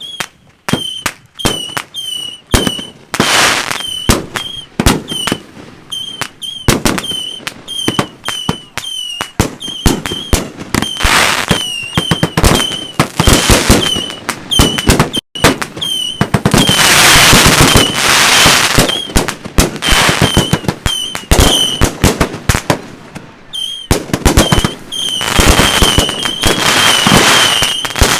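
Consumer fireworks cakes firing a rapid string of shots and bursts, with long stretches of crackling, loudest in the middle and again near the end. A short, high, chirping tone repeats about twice a second throughout.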